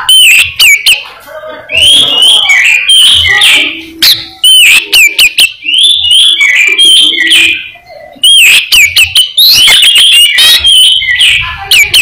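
Albino Oriental magpie-robin (kacer) in full, loud song: rapid varied phrases of rising and falling whistles mixed with sharp chattering notes. The bursts are broken by a few brief pauses.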